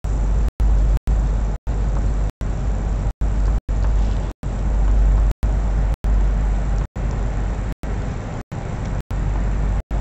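A steady low rumble of background noise, cut by brief silent gaps more than once a second.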